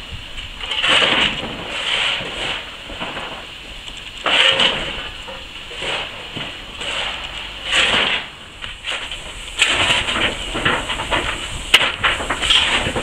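Narrow-gauge steam tank locomotive No. 403 working slowly along the track: hissing steam and exhaust chuffs, about one a second at first, coming closer together in the last few seconds.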